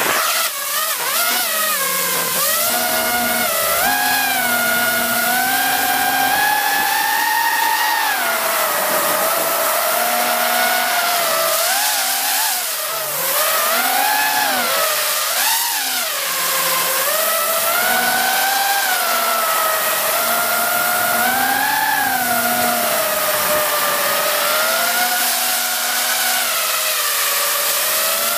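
FPV quadcopter's brushless motors and propellers whining. They spin up at the start, then the pitch rises and falls over and over as the throttle changes in flight.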